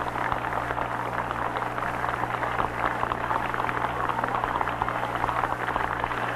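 A large crowd applauding, a dense steady crackle of clapping, heard on an old, hissy recording with a steady low hum under it.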